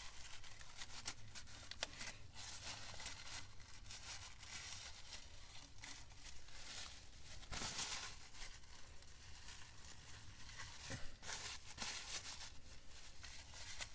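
Paper towel rustling and crinkling as it is rubbed around the inside of an open raw-water pump housing and crumpled in gloved hands; faint, irregular rustles.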